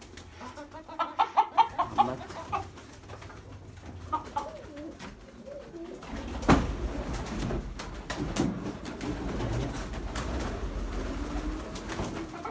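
Pigeons cooing in a small room, with a run of quick loud calls near the start. A sharp knock comes about halfway, followed by rustling and handling noise.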